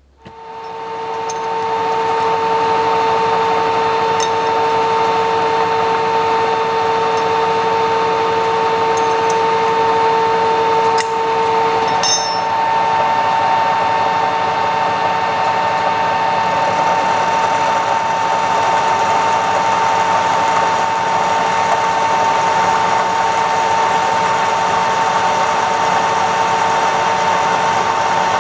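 A metalworking machine tool's electric drive starts and spins up over about two seconds, then runs steadily with a high, constant whine and gear noise. A lower hum drops out about twelve seconds in, and a few light clicks come in the first half.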